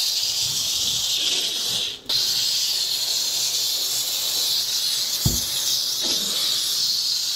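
Bissell SteamShot Deluxe handheld steam cleaner jetting steam from its nozzle: a steady hiss that cuts out briefly about two seconds in, then resumes. A short low thump about five seconds in.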